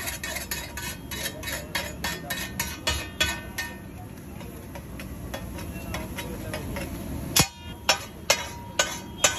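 Metal spatula chopping and scraping egg bhurji on a large flat tawa griddle. Quick clacks of the blade on the plate, about four or five a second, give way to softer scraping, then five loud clangs about half a second apart near the end.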